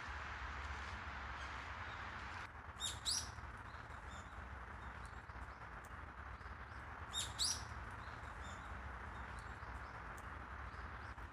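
Two short bursts of bird calls, quick rising chirps about four seconds apart, over a steady outdoor hiss and low hum.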